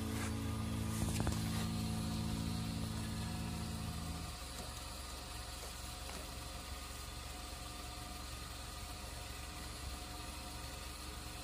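Suzuki Jimny engine idling steadily, with a few light clicks about a second in. About four seconds in it drops to a quieter, steady hum.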